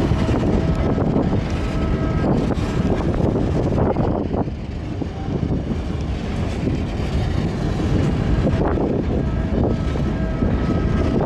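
Empty covered hopper freight wagons rolling past close by: a steady rumble of steel wheels on rail with repeated clacks over the rail joints and a faint squeal now and then.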